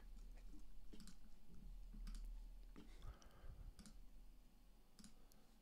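Faint computer mouse clicks, a few of them at irregular intervals.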